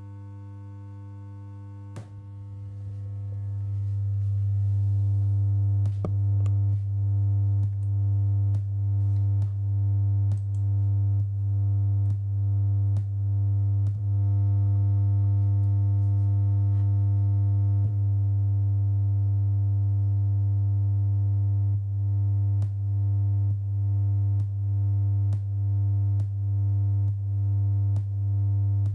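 Low, steady electronic synthesizer drone with stacked overtones, swelling up over the first few seconds. From about six seconds in it is broken by a regular click-like dip about every three-quarters of a second. The dips stop for several seconds in the middle and then resume.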